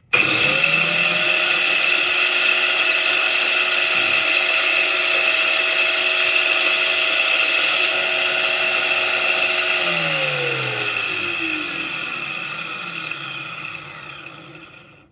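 Angle grinder, clamped in a vise as a bench grinder, switched on and spinning up to speed with a steady high whine. About ten seconds in it is switched off and winds down, its pitch falling until it stops.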